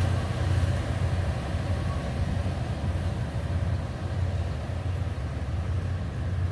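Steady low diesel rumble of a KiHa 183 diesel railcar train pulling away.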